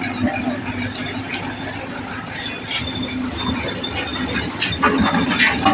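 Road-construction machinery running steadily, with squealing metal and several sharp clinks near the end.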